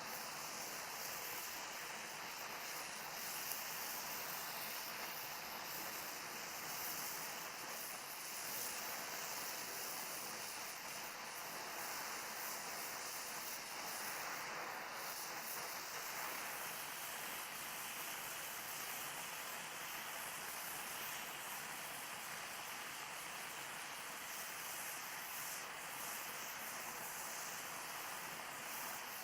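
Oxyacetylene welding torch flame hissing steadily while a bead is run with gas welding rod on a steel coupon.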